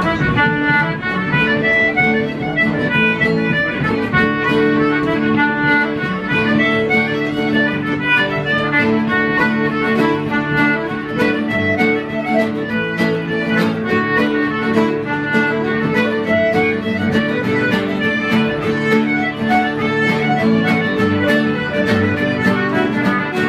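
Acoustic bluegrass-style string-band music: quick picked notes over steady held notes, playing on without a break.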